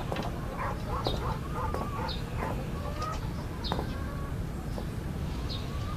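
Chickens clucking, with short high bird chirps now and then over a steady background.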